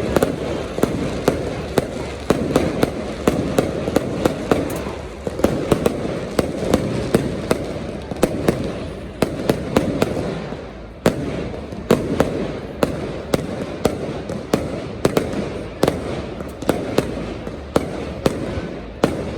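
Fireworks display going off: a rapid, irregular string of sharp bangs and crackles, often several a second, over a steady rumbling background.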